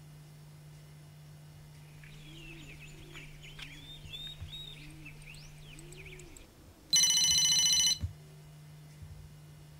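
Cordless home telephone ringing: one loud electronic ring about a second long, starting about seven seconds in. Before it, a few seconds of faint bird chirping, over a steady low hum.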